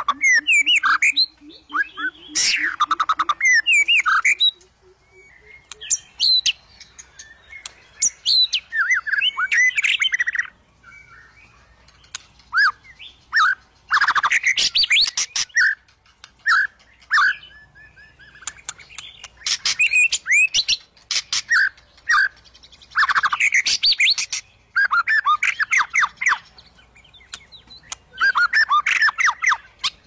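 White-rumped shama (murai batu) singing: about eight loud bursts of fast whistled and chattering notes, each a second or two long, with pauses between them that hold softer single notes.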